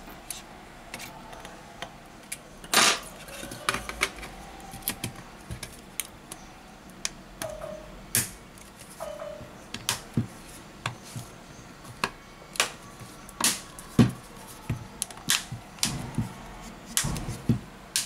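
Irregular sharp clicks and snaps from a Xiaomi Mi A2 Lite's back cover as it is pressed onto the phone's frame around the edges, one spot at a time.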